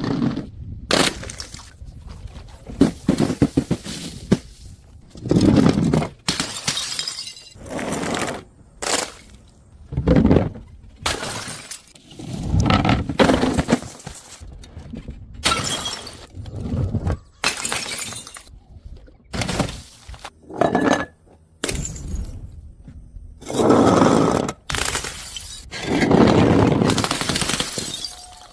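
Glass bottles smashing one after another, each a sudden crash with a short ringing tail of shattering glass, about every second or two. A few of the crashes are heavier and duller.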